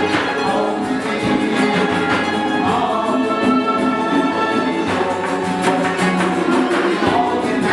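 Persian traditional ensemble playing a tasnif in dastgah Shur: plucked tar, oud and bass tar with hammered santur and bowed kamancheh over a steady tombak and daf rhythm. A single high note is held for a couple of seconds in the middle.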